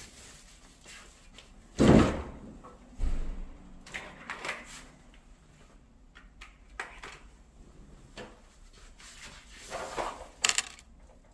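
Handling noises as a charger cable is plugged into a power strip and a portable nail drill: a dull thump about two seconds in, then scattered light clicks and rustling, with a sharper click near the end.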